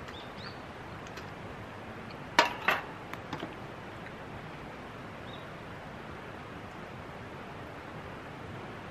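A stainless steel cup and knife set down on a camp table: two sharp metallic clinks with a brief ring a little over two seconds in, then a few lighter taps, over a steady background hiss.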